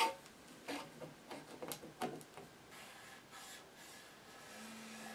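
Metal lid of a tin of paste wax being pried off with a knife: a sharp click as it starts, then several small metallic clicks and scrapes, followed by faint cloth rubbing. Near the end a faint low steady tone sounds twice.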